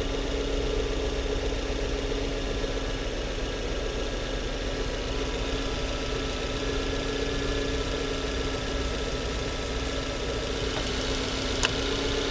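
Volvo S40 engine idling steadily, with the slight unevenness and shaking that the mechanic calls a small stumble; he suspects an air leak in the intake, along with the fault he traced to the air flow meter. A single short click near the end.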